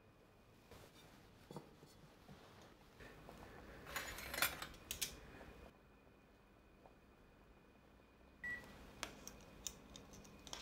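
Quiet kitchen handling sounds of stainless cookware and utensils: scattered light clicks and clinks, with a short noisy rush of handling about four to five and a half seconds in and a run of sharp clicks near the end.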